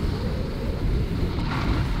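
Heavy wind rumbling on the microphone, with the hiss of skis sliding over snow during a ski run.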